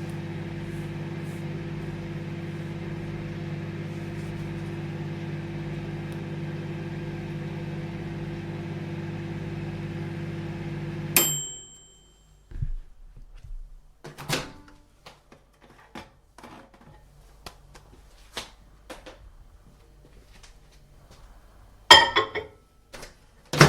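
Microwave oven running with a steady hum that stops about halfway through with a click and a short high beep. Scattered light clicks and knocks follow, with a burst of louder clacks near the end.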